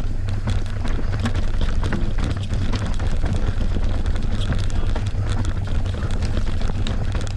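Merida One-Sixty full-suspension mountain bike ridden down a rough enduro trail: a steady low rumble with constant small clacks and rattles.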